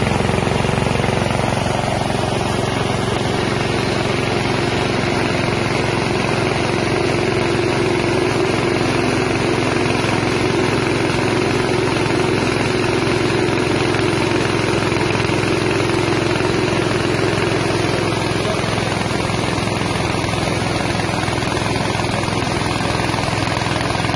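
Small 6.5 hp single-cylinder air-cooled engine running steadily, driving a mini rice-milling machine.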